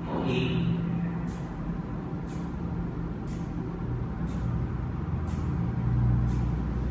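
Steady low background rumble, with a faint click about once a second.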